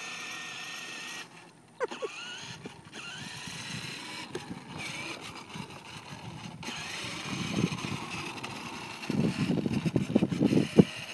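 Battery-powered ride-on toy ATV driving over asphalt: a steady electric motor whine with the plastic wheels rumbling, cutting out briefly about a second and a half in. The rumble grows louder in the second half, and there is a sharp click near the end.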